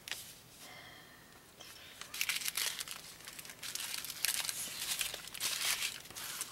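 Small plastic bags of diamond-painting drills crinkling as they are handled, starting about two seconds in and going on in repeated bursts.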